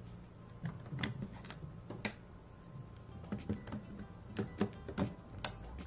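A mechanical timer attachment being pushed and fitted onto a motor-starter contactor: a series of small plastic clicks and taps, the sharpest one near the end.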